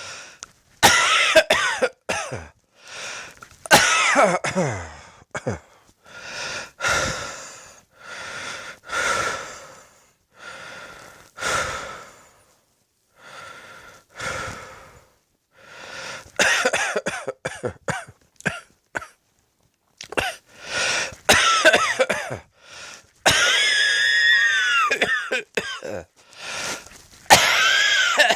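A person coughing in repeated bouts, with long wheezing breaths drawn in between the coughs.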